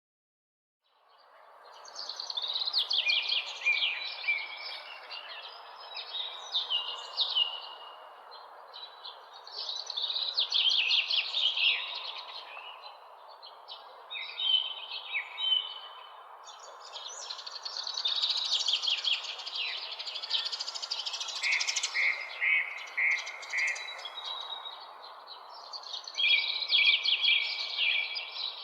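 Several birds chirping and trilling, calls overlapping one another, over a steady background hiss. The sound fades up from silence about a second in.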